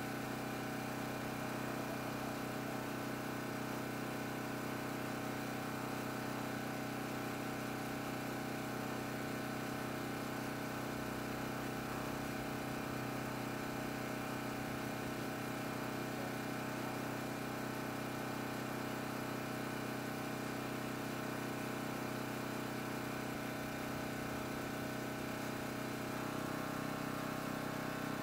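Champion 3800-watt dual fuel portable generator's single-cylinder engine running steadily under the load of a window air conditioner; its note holds even as the draw ramps up, with a slight change in tone and a little louder near the end.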